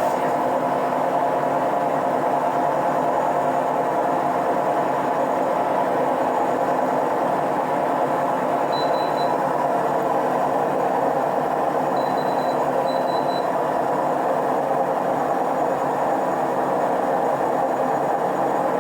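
Hotpoint Ariston washing machine in its spin cycle, the drum spinning with a steady, unchanging mechanical noise.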